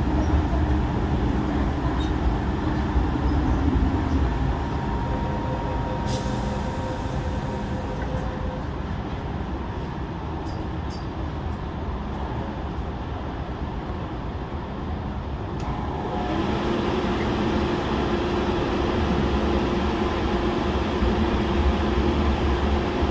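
MTR Tung Chung line CAF electric train running on the line: a steady rolling rumble with faint motor tones. About two-thirds of the way through, the sound changes and a steady hum comes in.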